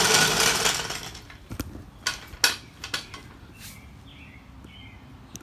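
A floor jack being moved across a concrete floor: a rush of noise in the first second, then several sharp metallic clanks over the next two seconds.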